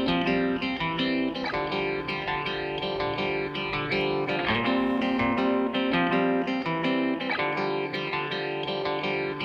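Background music: a plucked guitar tune.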